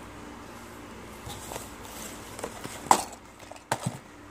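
Small cardboard toy boxes being handled and set down on a table: light handling noise, then a sharp knock about three seconds in and another just under a second later.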